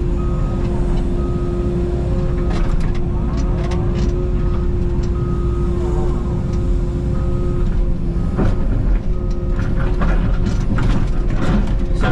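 Takeuchi TB290 mini excavator's engine and hydraulics running steadily with a constant whine, under the repeated beeping of a backup alarm. Knocks and scrapes from the digging come more often in the second half.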